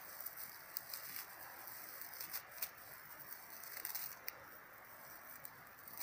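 A clump of dry old man's beard lichen being teased apart and fluffed up by hand: faint rustling and crackling with small scattered snaps.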